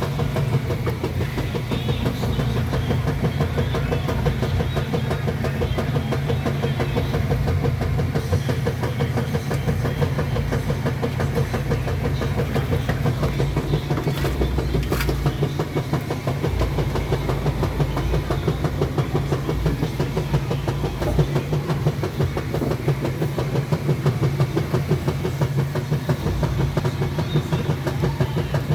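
Kenmore washing machine agitating after filling with water: a steady low motor hum with a fast, even rhythm over it.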